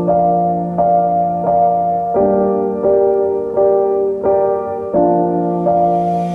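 Background music: a piano playing slow, even chords, a new note struck about every 0.7 seconds.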